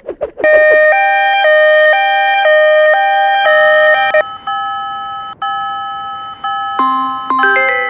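Synthesized level-crossing warning bell alternating between two pitches about twice a second. About halfway through it changes to a different-sounding ding pattern, and near the end it turns into quick chime-like notes.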